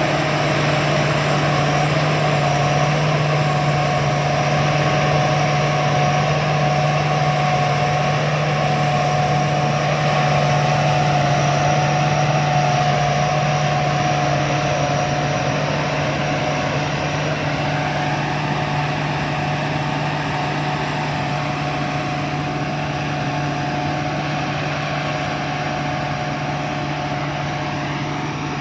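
Sakpattana combine harvester running steadily in a rice field: a constant engine hum with a steady whine from its machinery over it. It grows a little fainter in the second half.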